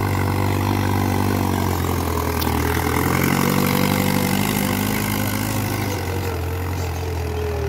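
Mahindra 575 DI XP Plus tractor's diesel engine running steadily under load while it pulls a spring-tine cultivator through ploughed soil.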